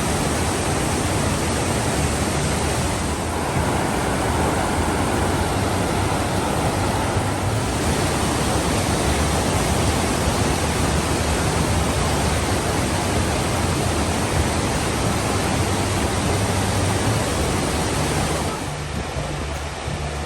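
Steady, loud rush of water from Fukiware Falls, the waterfall the visit is about. About two seconds before the end the rush drops somewhat quieter and duller.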